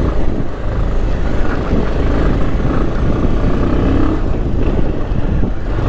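Motorcycle engine running at low speed on a rough dirt road, with a steady low rumble.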